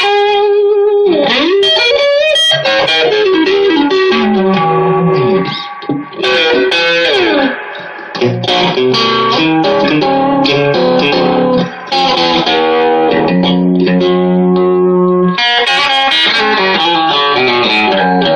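Electric guitar played through a Vox AC15 valve amp, single-note lines with string bends and sustained chords, the amp working again after a shorted capacitor and power tube were replaced. There are brief pauses near the middle.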